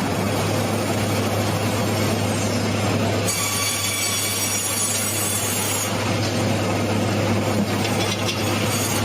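Sawmill saw cutting lengthwise through a log, a steady loud mix of motor hum and blade-in-wood noise, with a high squealing whine joining for a few seconds in the middle.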